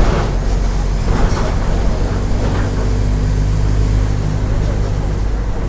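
Mercedes-Benz OF 1418 bus diesel engine running with a steady low drone.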